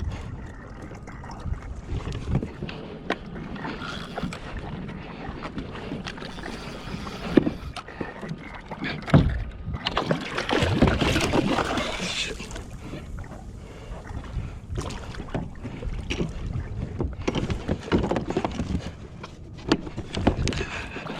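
Water sloshing and splashing around a fishing kayak, with scattered knocks and handling sounds on the hull. It grows louder and busier for a few seconds near the middle.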